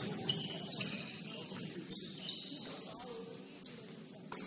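Basketball shoes squeaking on a hardwood gym floor: several short high squeaks, with a sharp knock about three seconds in.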